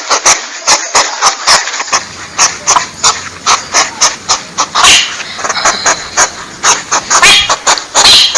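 Porcupine calls: a rapid, loud series of short sharp squeaks and clicks, about four a second, some with a ringing high note. About two seconds in, a steady background hiss and low hum come in under them.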